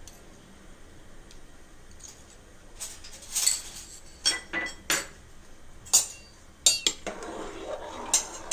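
A metal spoon clinking and scraping against metal cookware while ginger-garlic paste is spooned in: quiet for about the first three seconds, then around eight sharp clinks, some of them ringing briefly.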